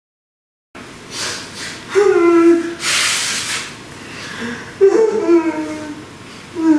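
A woman crying theatrically: short, wavering sobbing sounds, broken by a loud gasping breath about three seconds in. It starts after a moment of total silence.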